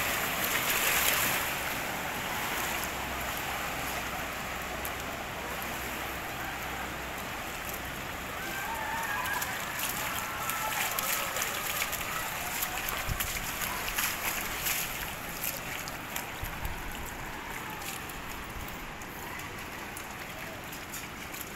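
A car driving through deep floodwater, its wheels throwing up spray with a loud rushing splash in the first second or two. This settles into a steadier wash of moving water with scattered small splashes and clicks.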